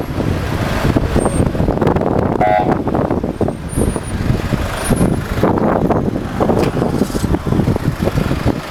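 Traffic noise from cars crowded in a congested street, a dense uneven rumble. A short car-horn toot sounds about two and a half seconds in.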